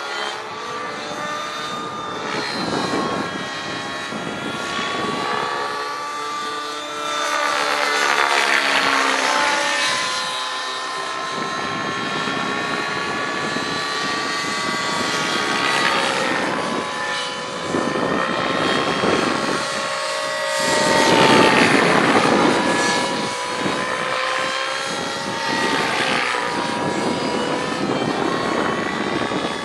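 Align T-Rex 700 radio-controlled helicopter flying manoeuvres. Its rotor and drive whine rises and falls in pitch, swelling louder on several passes, loudest about two-thirds of the way through.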